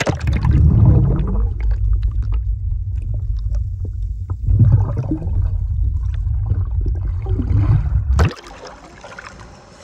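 Muffled underwater rumble and water sloshing, with scattered clicks, picked up by a phone's microphone sealed inside a waterproof diving case under the sea. About eight seconds in it drops off sharply as the case breaks the surface, leaving a quieter hiss of water and air.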